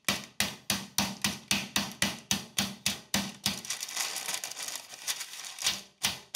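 Smooth face of a metal meat mallet pounding a bone-in pork chop through parchment paper, fast even blows about three to four a second. After about three and a half seconds the blows grow softer and less regular, stop briefly near the end, then start again.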